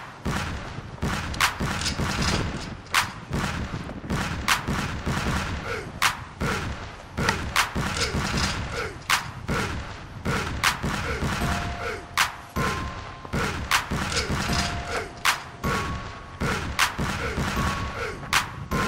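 Soundtrack music with a steady, heavy percussive beat: a strong hit about every second and a half with lighter hits between, and short falling synth notes. Sustained higher tones join about twelve seconds in.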